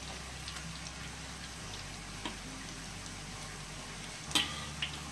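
Corn and shrimp fritters frying in very hot oil in a wok: a steady sizzle with small crackles. About four seconds in, a metal spatula taps sharply against the wok, then once more lightly.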